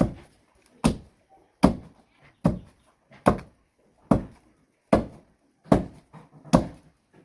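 Heavy, even pounding in a mortar: nine dull thuds about 0.8 s apart, each ringing briefly in a small room.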